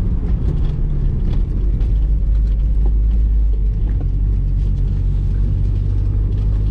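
Heard from inside the cabin, the Mk2 Golf GTI's big-turbo 1.8T 20-valve four-cylinder runs steadily at low revs with a deep, even rumble.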